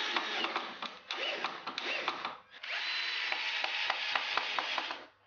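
Cordless drill running in two runs of about two seconds each with a short break between, its motor whining steadily as the bit works into HMR board.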